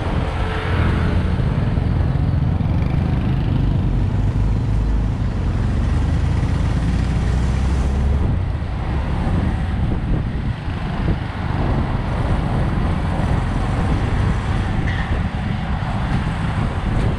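Motorcycle riding in road traffic, heard from a GoPro mounted on it: a steady engine and wind rumble over the microphone, with the lowest rumble easing about eight seconds in.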